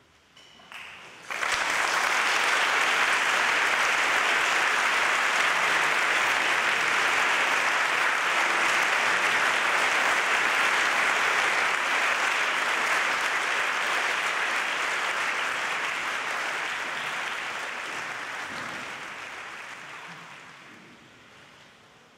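Audience applauding, breaking out suddenly about a second in and fading away gradually over the last several seconds.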